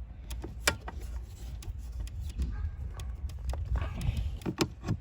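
Irregular clicks and light knocks of hand tools and hard plastic dashboard trim being handled and pried at.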